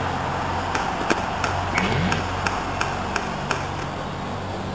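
Airsoft gun firing shot after shot, sharp clicks about three a second, over a steady low hum and hiss.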